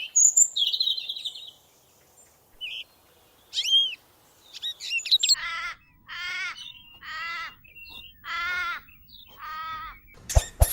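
Birds chirping and tweeting in short high calls, then five repeated animal calls about a second apart, each with a wavering pitch.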